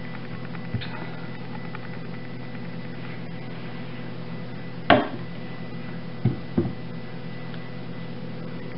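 Wooden single-wire soap cutter at work on a loaf of cold process soap: a sharp knock about five seconds in, then two softer knocks just over a second later, over a steady low hum.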